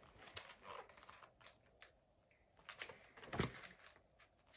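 Faint rustling and soft clicks of a picture book's paper pages being handled and turned, with a louder rustle and soft bump about three and a half seconds in as the book settles open.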